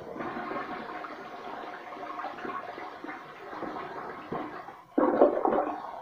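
A 2000s Lamosa toilet flushing a load of toilet paper: water swirling and draining in the bowl, with a louder surge near the end as the bowl empties.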